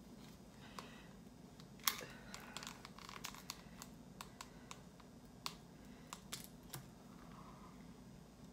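Plastic iced-drink cups with lids and straws being handled and knocked together, giving scattered light clicks and crinkles, the sharpest about two seconds in.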